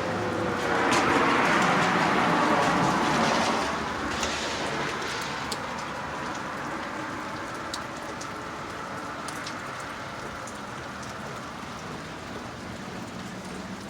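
Heavy rain pouring down during a thunderstorm, as a steady hiss. A louder rushing swell rises about a second in and fades after a few seconds.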